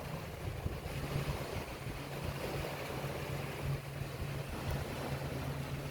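Steady low drone of a motorboat engine out on the lake, with wind noise on the microphone.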